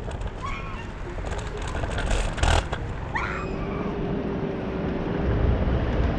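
Electric scooter being ridden along a road: a constant low rumble of wind and tyres, with a steady motor whine setting in about three seconds in. A few short squeaks sound, and one sharp knock comes about two and a half seconds in.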